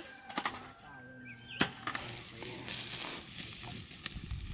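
A few sharp knocks and scrapes of a shovel digging stony soil, then from about two seconds in a steady sizzle and crackle of whole chickens grilling on wire mesh over a fire.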